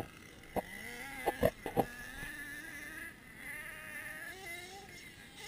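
Two-stroke nitro engine of an HPI Savage X monster truck (LRP Z28R), a thin distant whine whose pitch wavers up and down with the throttle, with a few sharp knocks about one to two seconds in.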